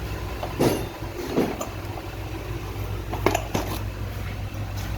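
Steady low hum with several separate sharp clacks and knocks, typical of metal engine parts and tools being handled during engine dismantling.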